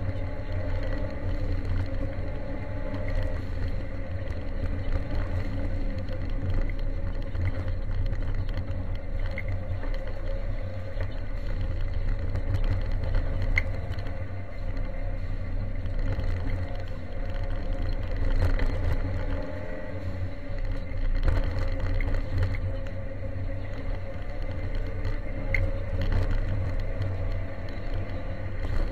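Ford Sierra Cosworth 4x4's turbocharged two-litre four-cylinder engine heard from inside the cabin, running hard at speed on a gravel stage. Scattered clicks of gravel hit the car's body and underside.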